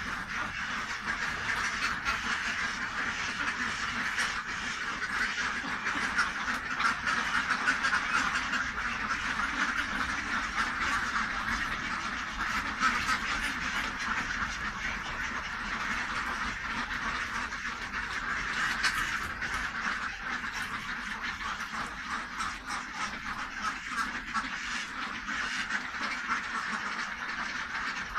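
A large flock of ducks quacking continuously, many birds calling over one another in a steady din.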